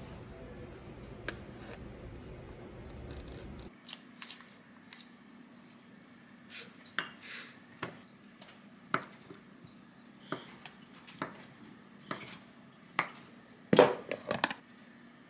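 Knife chopping a block of ham on a wooden cutting board, a short tap roughly once a second, followed near the end by a brief loud clatter of kitchen scissors against a glass measuring cup. Before the chopping there are a few seconds of steady low room rumble.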